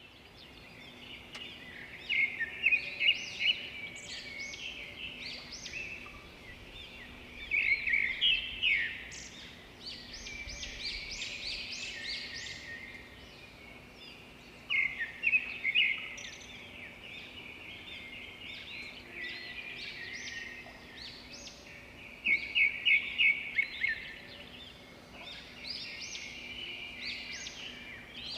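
Several songbirds chirping and singing together in a morning chorus. Four louder bursts of quickly repeated notes stand out every several seconds.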